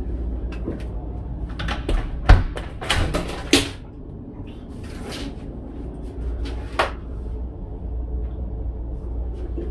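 A door being handled: a cluster of clicks and knocks about two to four seconds in, the sharpest a little past two seconds, then a lighter click near seven seconds. A low steady hum runs underneath.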